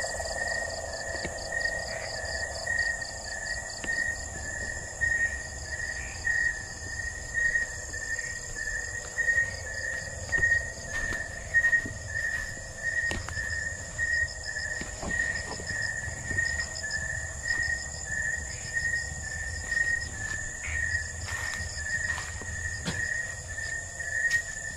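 Night chorus of calling insects and frogs: one caller repeats a short high note about twice a second, over a faster chirping and a steady high buzz. Occasional short rustles and steps sound through the undergrowth.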